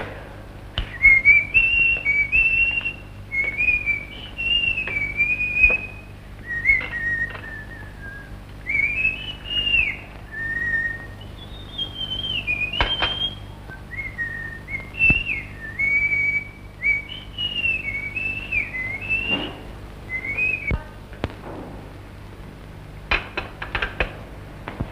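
A man whistling a wandering tune in short phrases, with a few light clinks of china teacups and teapot. The whistling stops a few seconds before the end.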